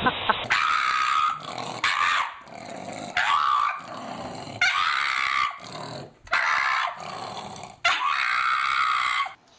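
Pug dog making a series of about six drawn-out vocal sounds, each lasting up to about a second and a half, with short breaks between them.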